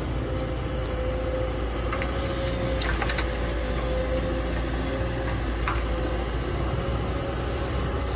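Kobelco hydraulic excavator's diesel engine running steadily under working load as it digs and swings soil, with a steady tone over the engine drone. A few short sharp clanks come about two and three seconds in and again near six seconds.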